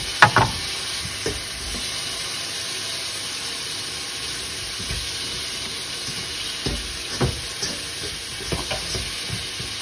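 Marinated paneer frying steadily in a pan, a continuous sizzle, with a few spoon knocks. The sharpest knock comes just after the start, and several more fall in the last few seconds.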